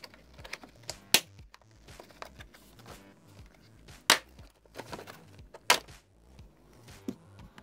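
Plastic door sill trim being pried up by hand, its retaining clips snapping loose: three loud sharp snaps, about a second in, about four seconds in and near six seconds, among lighter plastic clicks and rattles.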